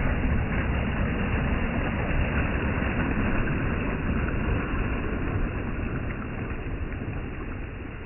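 Small sea waves washing up onto a pebble beach, a steady surf noise that is loudest at first and fades gradually as the wave draws back.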